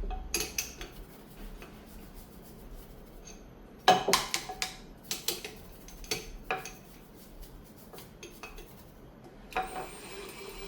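Clinks and knocks of hard coffee-grinder parts and counter items being handled and set down, irregular, with a quick cluster of louder clatter about four seconds in.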